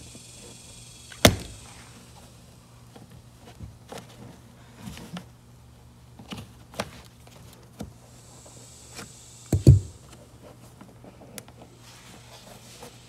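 Flathead screwdriver prying at a plastic trim holder in a 2011 Mercedes-Benz C300's trunk, making scattered clicks and knocks of metal on plastic. The loudest are a sharp snap about a second in and a double knock a little before the end.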